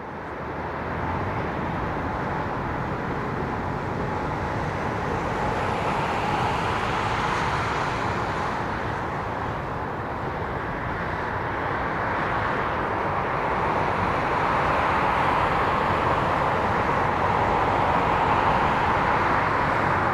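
Jet airliner engines: a steady roar that swells slowly in the last few seconds.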